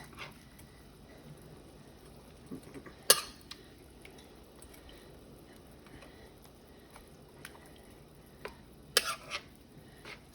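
Utensil clinking against a cooking pan: a sharp clink about three seconds in, a few lighter taps, and a quick cluster of clinks near the end, over a faint steady background.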